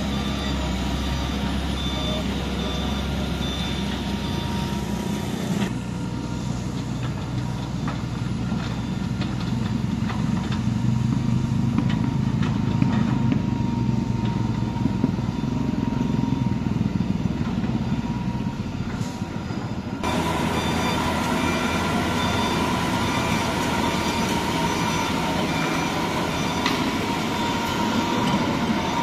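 Cat hydraulic excavator working: its diesel engine and hydraulics running steadily, with a few thin steady tones over the engine noise. The sound shifts abruptly about six seconds in and again about twenty seconds in.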